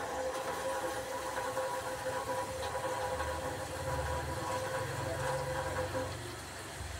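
Potato fries sizzling as they deep-fry in hot oil in a black iron wok, over a steady hum.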